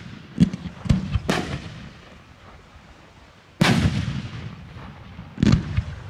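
Aerial fireworks display: sharp bangs with echoing tails, three in quick succession in the first second and a half, then single louder bangs about three and a half and five and a half seconds in.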